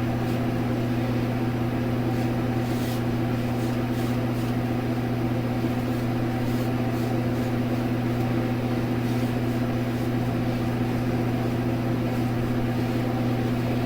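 A steady low mechanical hum, with a few faint, short scrapes over it.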